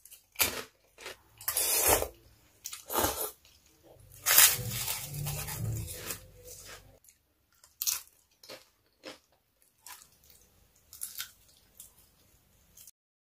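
Close-up eating sounds: bites into crunchy food and chewing, a string of irregular sharp crunches. They grow smaller and sparser in the last few seconds.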